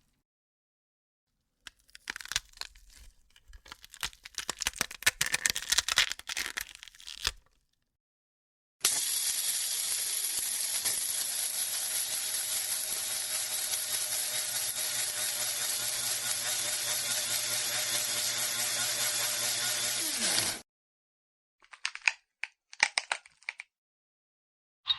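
Bone-cracking sound effects: a run of irregular cracks and crunches, then a long dense, even crackling that cuts off suddenly after about twelve seconds, then a few short cracks near the end.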